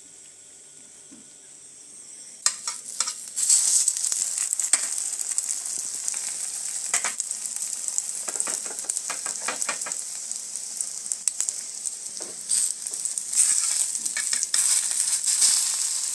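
Egg-dipped bread slices frying in hot oil in a pan. Quiet at first, then a loud sizzle starts about three seconds in and keeps going, with spatula taps and scrapes against the pan.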